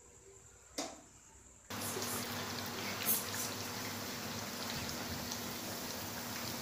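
Hot oil sizzling and crackling steadily around fish pieces deep-frying in a pan. The sizzle starts suddenly after about a second and a half, just after a sharp click.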